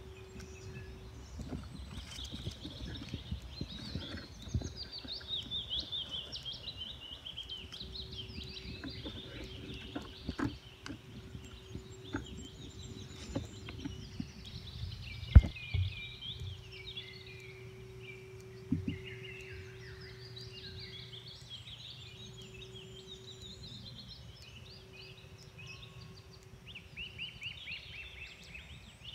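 Songbirds singing, a dense run of short, rapid chirping notes, over a faint steady hum. A few sharp knocks of handling break in, the loudest about halfway through.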